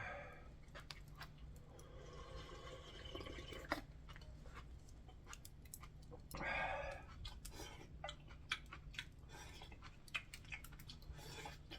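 A person eating ramyun noodles: quiet chewing with scattered small clicks and a few short noisy rushes of sound, over a steady low hum.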